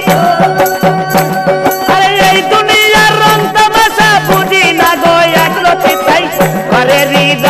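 Bengali Baul folk music playing loud without singing: a bending melody line over a steady percussion beat with a rattling shaker.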